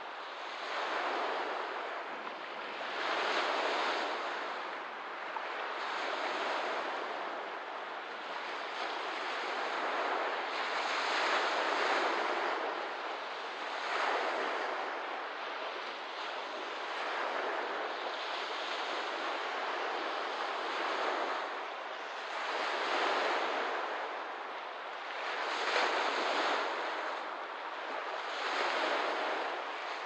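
Small waves washing onto a lakeshore in a steady rhythm, each one swelling and fading every two to three seconds.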